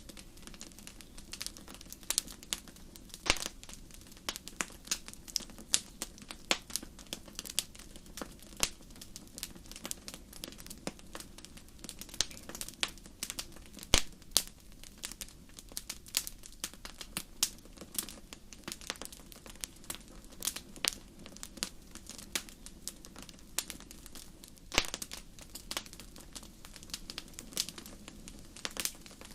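Wood fire crackling: irregular sharp pops and snaps, a few louder ones, over a steady low hiss of burning.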